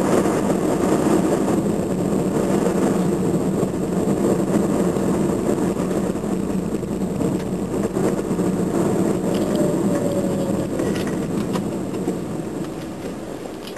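Car engine and road noise heard from inside the cabin, a steady rumble that dies away near the end as the car slows for a junction.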